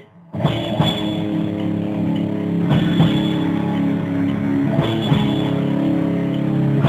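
Heavy metal band instrumental: two electric guitars holding chords over a drum kit, with a loud cymbal-and-drum hit about every two seconds. The music kicks in just after the start.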